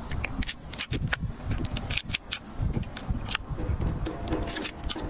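Cooked lobster shell cracking and crunching as it is bitten and picked apart: an irregular run of sharp clicks and cracks, over a steady low rumble.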